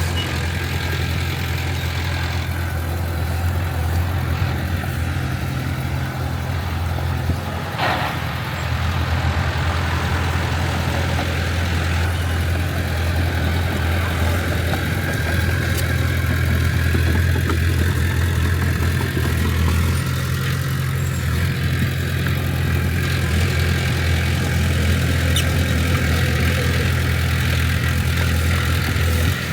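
Heavy diesel construction machinery engine running steadily at a low, even speed, with a brief higher-pitched sound about eight seconds in.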